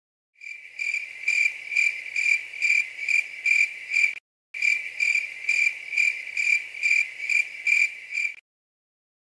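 Cricket chirping in a steady run of about two chirps a second. It breaks off briefly about four seconds in, then resumes and stops suddenly near the end.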